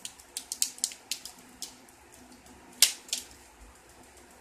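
Foil pop pouch crinkling and crackling as it is squeezed and handled: a quick run of small sharp crackles, then a louder click about three seconds in and a smaller one just after.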